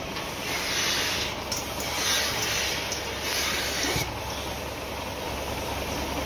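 Milking machine teat cups hissing in several short bursts as they suck air while being fitted onto a cow's teats, stopping about four seconds in once the cluster is on. Steady machine noise of the parlour's milking system runs underneath.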